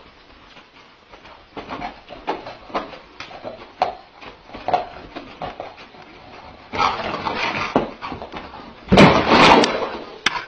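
A large dog rolling and kicking on its side on a carpeted floor, with short scattered dog sounds and scuffles. The loudest is a noisy burst about nine seconds in.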